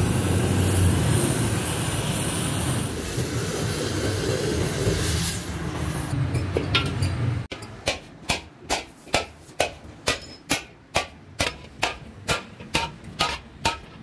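Oxy-fuel cutting torch hissing steadily as it burns a round hole through a galvanized steel geyser end cap. About halfway through this stops abruptly, and a hand hammer strikes the steel dish about twice a second, each blow a sharp metallic clank with a short ring.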